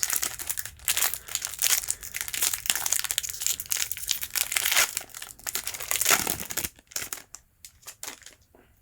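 A Pokémon booster pack being opened, its foil wrapper crinkling densely. The crinkling thins out to a few light rustles about seven seconds in.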